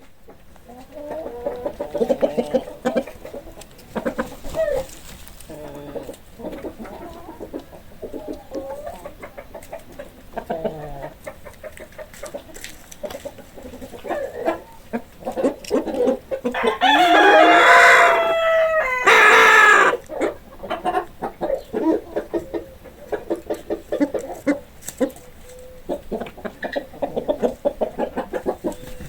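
Chickens clucking in a steady run of short calls, with one loud, drawn-out crow from a rooster about two-thirds of the way through.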